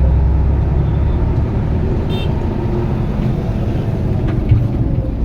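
Car on the move: a steady low rumble of engine and road noise. A brief high beep sounds about two seconds in.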